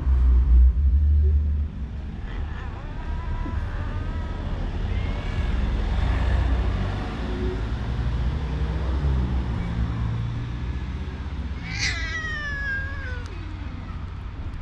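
Stray cats meowing: a few faint short meows in the first half, then one loud, drawn-out meow about twelve seconds in that falls in pitch. A low rumble runs underneath.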